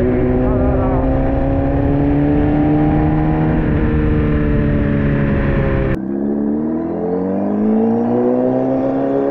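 Motorcycle engine running under load as the bike rides, its pitch rising slowly over a heavy rush of wind noise. About six seconds in, the sound cuts abruptly to a quieter stretch, where the engine's pitch climbs steadily as the bike accelerates.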